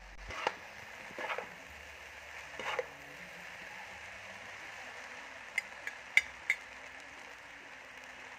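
Noodles and vegetables sizzling in a wok as they are tossed with metal utensils. There are a few scraping strokes in the first three seconds and four sharp clicks of metal on the pan about halfway through.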